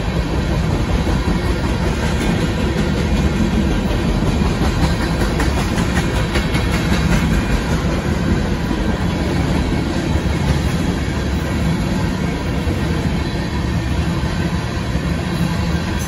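Freight train tank cars rolling past close by: a steady, loud rumble of wheels on rail, with the clicks of the wheels going over the rail joints.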